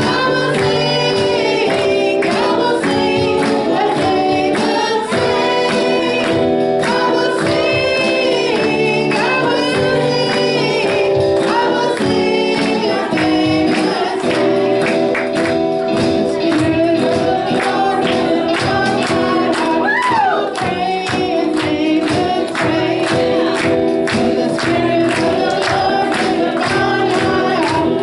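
Gospel worship music: a group of voices singing together over a band with a steady beat.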